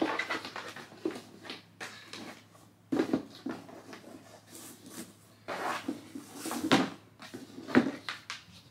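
Packaging being handled as a pair of sandals comes out of its box and cloth dust bag: irregular bursts of rustling with a few light knocks.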